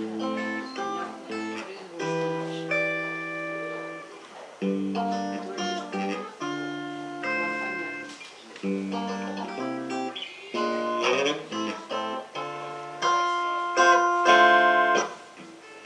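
Acoustic guitar playing an introduction: picked and strummed chords that change every second or two, with louder strums near the end.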